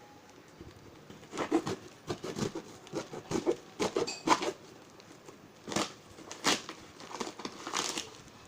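Packaging being torn and pulled open by hand: irregular bursts of rustling, scraping and crackling that start about a second in.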